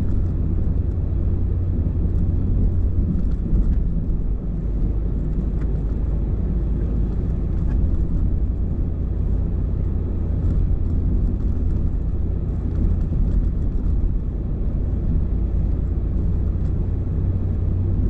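Pickup truck driving on a snow-covered road, heard from inside the cab: a steady low rumble of engine and tyres.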